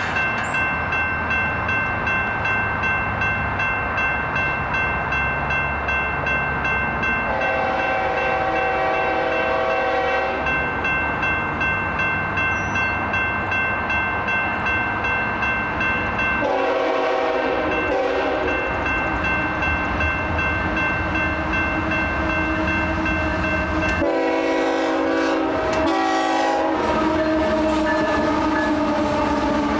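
Railroad crossing bell ringing steadily while a Union Pacific freight train approaches and sounds its horn in three blasts, the last one breaking up. Near the end the locomotives run through the crossing.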